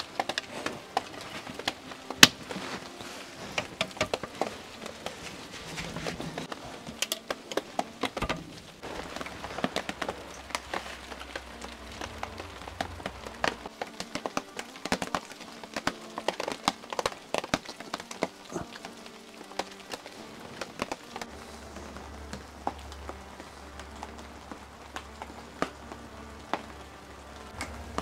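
Raindrops tapping on a caravan's roll-out awning: a steady patter with many irregular sharp ticks, one louder tick about two seconds in.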